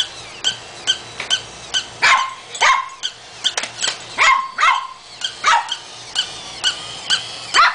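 Battery-operated plush barking, jumping toy dog yapping over and over in short, sharp barks, about two a second.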